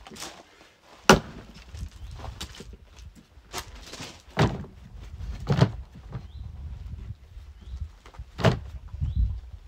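Axe or maul blows splitting firewood logs: four heavy wooden strikes a few seconds apart, with a few lighter knocks between them.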